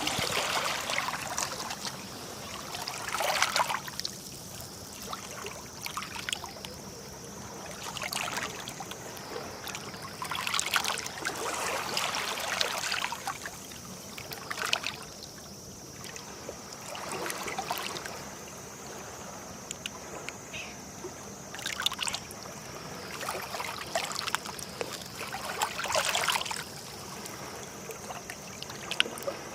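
Small sea waves lapping and splashing against the shore, in irregular swells every few seconds, over a steady high hiss.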